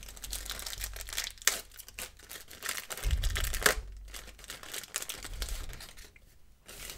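Wrapper of a 1990/91 Pro Set soccer card pack being torn open and crinkled by hand: a run of crackling with a few sharper rips, quieter near the end.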